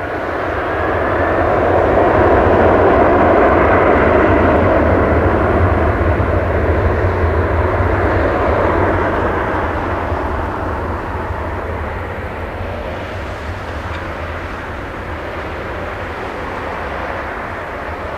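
Jet engines of a Boeing 767-300ER airliner running as it turns on the runway to line up for takeoff: a steady rumble and roar that swells over the first couple of seconds and slowly fades after about ten seconds.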